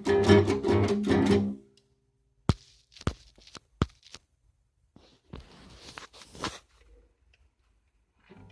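Guitar strumming in a quick, even rhythm that stops about a second and a half in. A few sharp knocks and a stretch of faint rustling follow.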